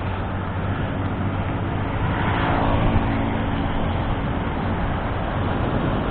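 Motorcycle engine running while riding, under a steady rush of wind and road noise, with a louder swell about two and a half seconds in.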